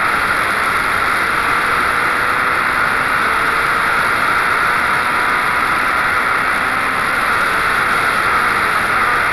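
Onboard sound of the Wolf GB08 Honda sports prototype at speed on a straight: a steady rush of wind over the open cockpit, with the engine running faintly underneath.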